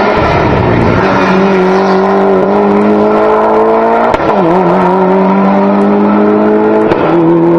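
Race car engine held at high revs as it climbs a hill-climb course, its pitch edging upward and briefly dipping at gear changes about four times, the deepest dip about four seconds in.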